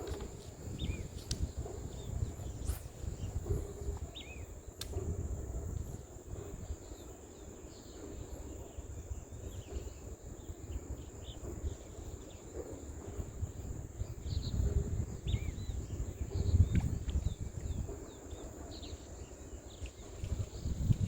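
Wind buffeting the microphone in uneven gusts, under a steady high-pitched insect drone and short scattered bird chirps.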